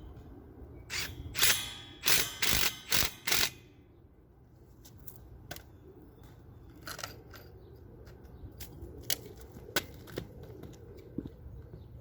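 Power driver running in several short, loud bursts, driving 1/4-inch Tapcon screws into concrete block, followed by scattered light clicks and taps.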